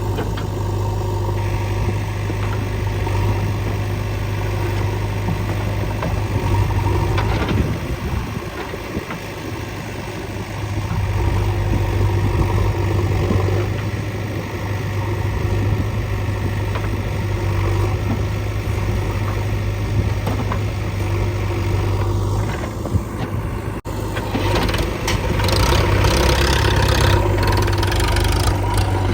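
Diesel engines of a backhoe loader and a tractor running steadily with a low hum, the sound easing briefly about eight seconds in. The sound changes abruptly a little after twenty seconds, to a busier mix of engine noise.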